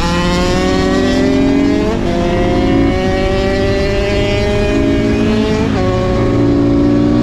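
KTM 450 supermoto's single-cylinder engine accelerating hard, its pitch climbing through the revs with quick upshifts about two seconds in and again about six seconds in.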